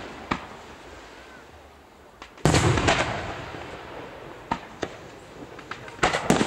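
Aerial firework shells bursting: a loud bang about two and a half seconds in, followed by a quick spatter of smaller pops as it fades, scattered single pops, and two more bangs close together near the end.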